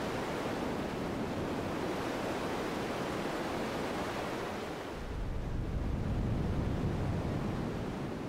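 Synthesized sea surf made from band-pass-filtered noise in a modular synth patch: a steady rush of stereo noise, then a fuller, deeper wave swell rising about five seconds in and fading away near the end.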